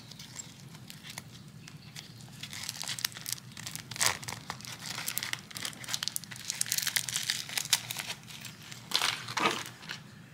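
Clear plastic zippered pouch crinkling as it is handled and opened: irregular crackles and rustles, louder in spells about four seconds in and again near the end.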